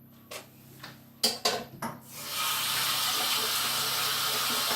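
A few sharp knocks, then a kitchen tap turned on about two seconds in, water running steadily into the sink.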